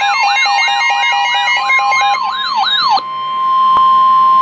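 Several siren sounds sweeping rapidly up and down over a stepping hi-lo beep, cutting off about three seconds in. They leave a single steady, loud tone: the weather radio warning alarm tone that precedes a National Weather Service warning.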